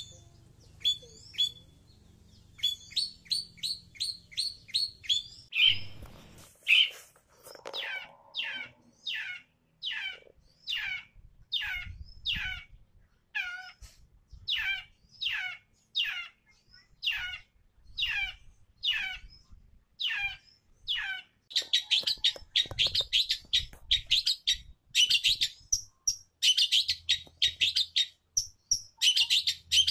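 Long-tailed shrike (cendet) calling: quick short chirps at first, then a long even series of down-slurred notes, about one a second. Near the end it breaks into a faster, louder run of rapid notes.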